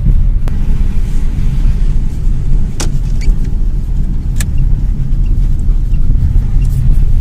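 Lada Priora driving, its steady engine and road rumble heard inside the cabin, with a few sharp clicks or knocks.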